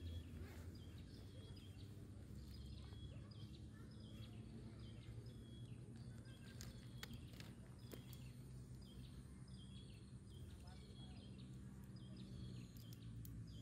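Faint outdoor ambience: a bird repeating a short high call phrase over and over, about once a second, over a steady low hum. A few light clicks and rustles of a soft cooler bag being unzipped and handled come around the middle.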